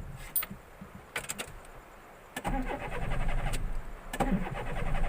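A car's starter motor cranking the engine in two long tries, the first from about halfway in and the second just after it near the end, with the engine not catching. A few sharp clicks come before the cranking. The car will not start, which the owner puts down to a flat battery.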